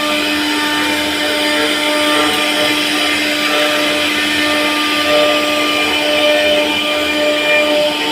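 CNC router spindle running at a steady pitch while carving wood, a constant motor whine over the hiss of cutting.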